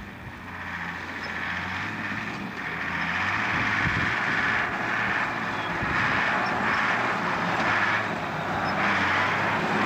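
Off-road 4x4 engine running as the vehicle drives along a track, with steady tyre and road noise over it, growing louder over the first few seconds.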